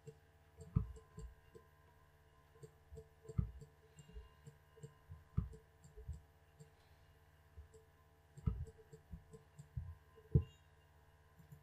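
Quiet, irregular soft thumps and clicks from a computer mouse being moved and clicked on a desk, over a steady low electrical hum.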